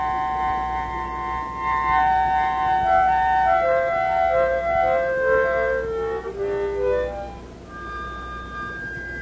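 Harmonica playing a slow tune in chords, several notes held together and changing in steps, the melody moving lower around the middle. It thins to softer, single held notes near the end, over a steady low hum.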